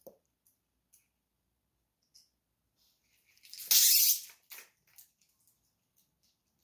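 Tablets rattling in a plastic pill bottle, one brief loud rattle about halfway through, followed by a few small clicks.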